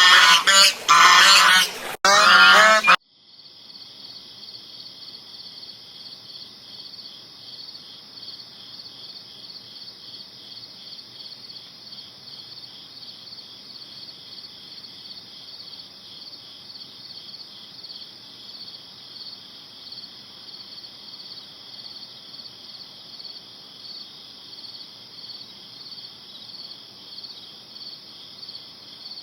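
Loud waterfowl honking for about the first three seconds, cut off abruptly. Then a steady, high-pitched chorus of chirping insects pulsing rapidly and evenly.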